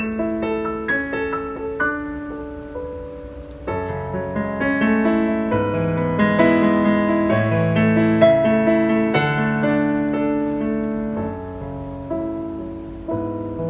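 Kawai CN21C digital piano played with both hands: a melody over sustained chords. The playing grows fuller and louder with low bass notes from about four seconds in, then eases off near the end.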